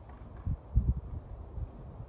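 Wind buffeting the microphone: irregular low rumbling gusts, strongest a little under a second in.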